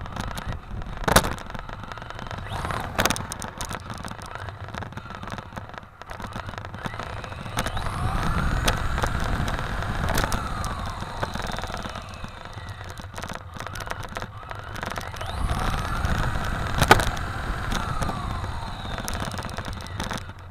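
Onboard sound of a Tamiya TT-02D radio-controlled car running fast on asphalt, heard from a camera mounted on the car: a steady rumble of tyres and wind, with the electric drivetrain's whine rising and falling twice as the car speeds up and slows. A few sharp knocks cut in, about a second in, at three seconds and once near the end.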